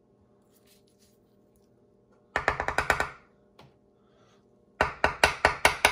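A small plastic test barrel of dry soil being tapped to settle the soil down to the 1 millilitre mark: two quick runs of about eight sharp knocks each, one about two seconds in and another near the end.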